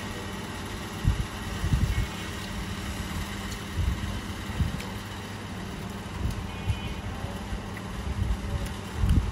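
Irregular dull low thumps over a steady background hum.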